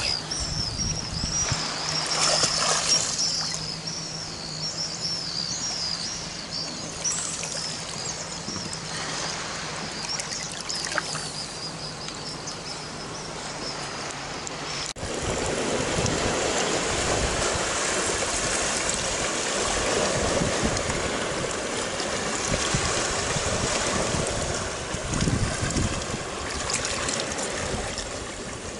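Shallow seawater sloshing and trickling around a wading swimmer, with a high, wavering chirping over it. About halfway through it changes abruptly to a louder, steadier wash of sea water by a rocky shore.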